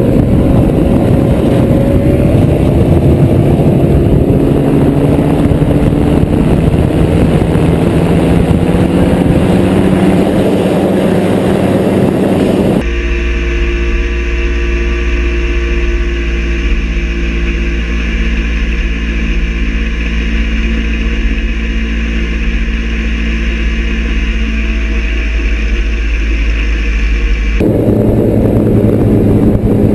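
XCitor paramotor trike's engine and propeller running steadily in flight, with its pitch drifting slowly in the first part. About halfway through the sound switches abruptly to an even, steadier drone with a deep hum. Near the end it switches back.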